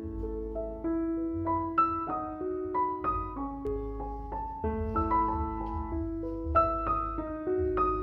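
Background music: a melody of short, stepping notes over a pulsing bass line.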